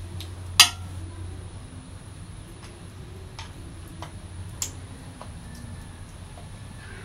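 Scattered metallic clicks and clinks as a motorcycle carburetor and its small metal parts are handled and worked on by hand: one sharp click about half a second in, another a little before five seconds, and lighter ticks between, over a low steady hum.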